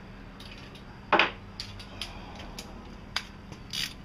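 Scattered metallic clicks and clinks of hand tools being handled, with one louder knock about a second in and a quick run of clicks near the end.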